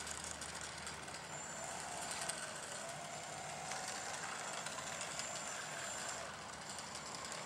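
Electric motor and propeller of a GWS T-6 Texan foam RC plane running as it rolls along the runway for takeoff: a faint high whine over a steady hiss.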